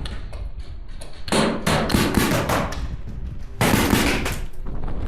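Paintball markers firing rapid strings of shots: one volley about a second in and another near four seconds, each lasting about a second. Heavy wind rumble on the microphone runs underneath.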